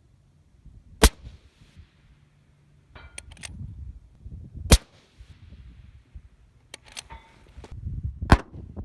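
Three shots from a bolt-action precision rifle, roughly three and a half seconds apart, with smaller metallic clicks and brief ringing between them.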